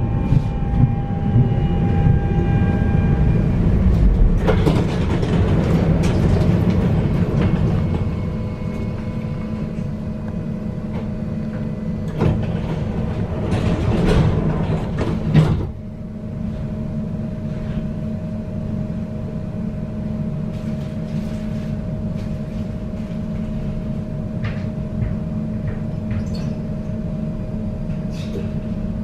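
Tram running on rails with a low rumble and a whine that fades over the first few seconds; the rumble drops away about eight seconds in. A louder rush of noise cuts off abruptly around the middle, and after that the tram gives a steady electrical hum.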